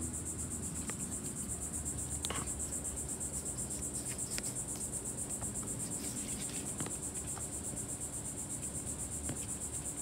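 A steady, high-pitched insect chorus, pulsing rapidly and evenly, over a low steady hum, with a few faint clicks.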